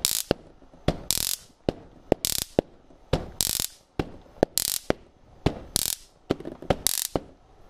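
Handheld stun gun (taser) crackling in short zaps, fired in a rough rhythm like a beat, about nine bursts with small clicks between them.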